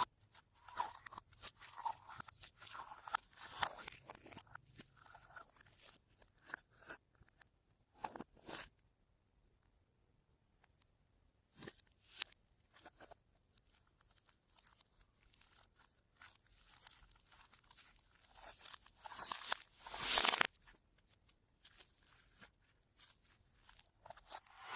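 Slime being worked by hand, giving irregular wet crackles and pops, with a few seconds' pause in the middle and a louder cluster of crackles about two-thirds of the way through.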